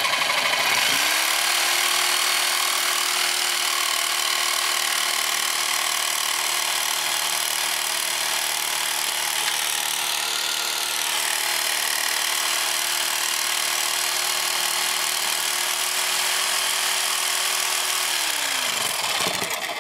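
Corded reciprocating saw running steadily, its blade cutting through the cast metal housing of an ATV front differential, with a steady motor whine under the rasp of the cut. It stops just before the end.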